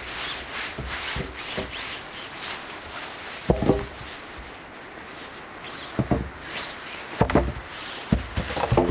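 Ripstop nylon cot fabric rustling as it is handled and a wooden pole is worked into its end channel, with several sharp wooden knocks from about a third of the way in, the loudest first.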